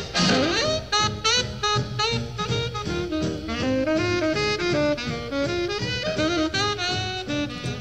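Background jazz music with a horn melody over drums. It opens with a rising glide into the tune.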